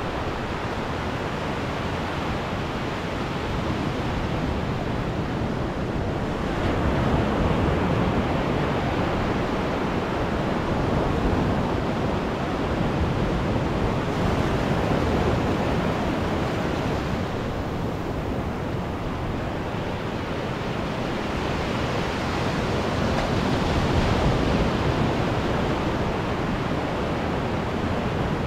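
Ocean surf breaking and washing up a sandy beach: a continuous rush of water that swells louder about a quarter of the way in and again near the end.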